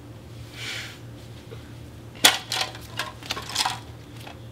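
Trading cards handled on a playmat: a short soft swish about half a second in, then from about two seconds a quick run of sharp taps and clicks as cards are set down, the first the loudest.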